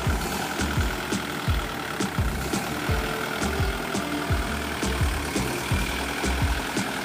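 Kubota L5018 tractor's four-cylinder diesel engine running, with a regular low pulse about twice a second.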